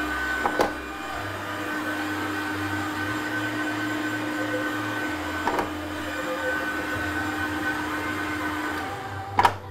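Heat gun blowing steadily, its fan motor giving a steady whirr, while hot air is played over a 3D-printed PETG box to melt off leftover printing strings. It cuts out about nine seconds in. There is a sharp knock shortly after the start and a couple more near the end.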